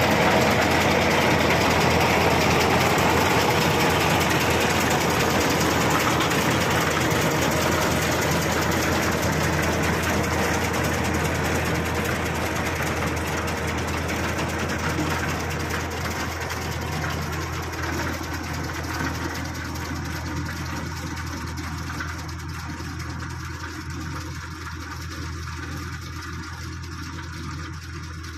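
A tractor engine running steadily as it pulls a Krone Turbo 2800 self-loading forage wagon collecting cut grass. The sound is loudest as it passes close by and fades steadily as it drives away.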